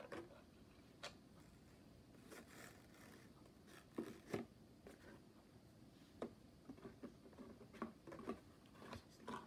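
Faint clicks, taps and scrapes as a toy drawbridge made of sticks is lowered on small chains from a cardboard castle, with a couple of sharper knocks about four seconds in and more small clicks near the end.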